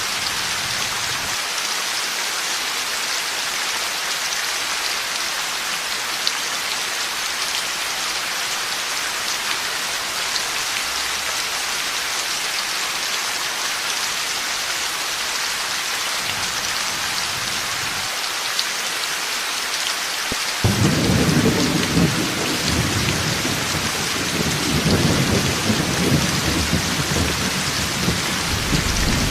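Heavy rain falling steadily, with the hiss of drops on a surface. About two-thirds of the way through, a deep roll of thunder breaks in suddenly and goes on rumbling in swells.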